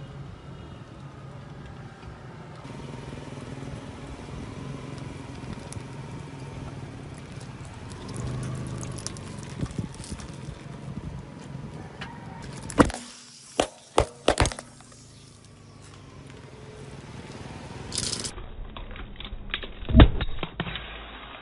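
Disposable plastic lighters bursting under a car tyre as it rolls over them: a quick run of four sharp pops about two-thirds of the way in, then the loudest pop near the end. Before the pops, the car's engine runs at low speed.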